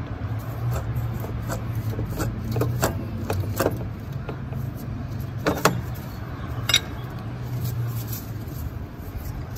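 Metal clicks and knocks as a stuck, seized A/C compressor on a 2004 Dodge Ram is rocked and worked loose from its mounting by hand. A steady low hum runs underneath. The sharpest clicks come a little past halfway.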